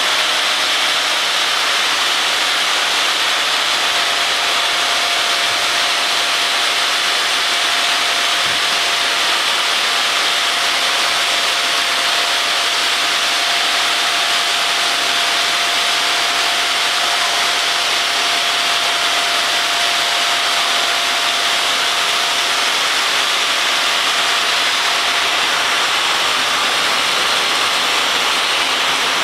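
Water-cooled 600 mm diamond blade of a stone edge-cutting saw cutting through a stone slab: a steady, loud hiss and whine, with a faint steady tone through the middle of the cut.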